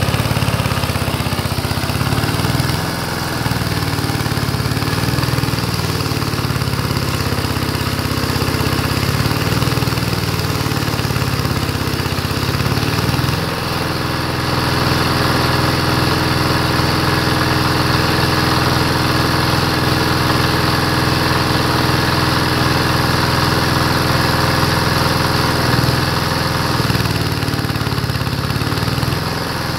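Small single-cylinder engine running steadily, belt-driving a generator that feeds an electric stick welder; the crackle and hiss of the welding arc run over the engine. The engine's note changes and settles about halfway through.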